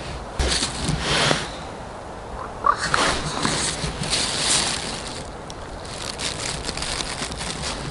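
Rustling and crinkling handling noise from a thin plastic tackle bag and a small winter ice-fishing rod as its nod is fitted on, coming in several bursts, with a run of small crackles near the end.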